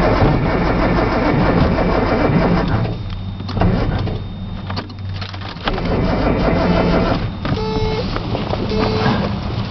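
Starter motor cranking the cold fuel-injected straight-six of a Datsun 280ZX that will not start; the cranking stops about three seconds in, leaving scattered quieter sounds and a few short tones.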